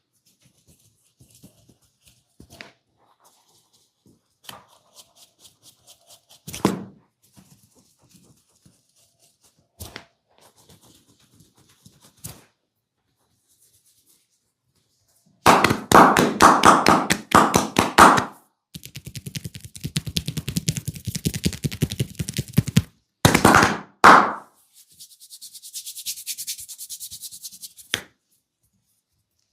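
Hands-on head massage: a few faint scattered clicks, then past the midpoint a loud, fast run of hand strikes on the head, about nine a second, followed by dense rapid tapping and a few more hard strikes. Near the end comes fingernail scratching through the hair of the scalp.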